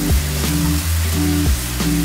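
Background music with held bass notes and drum hits, over a steady sizzle of chicken and vegetables stir-frying in a pan.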